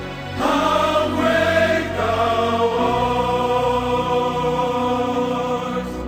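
Background music: choir-like voices holding long chords, changing chord about half a second and again about two seconds in.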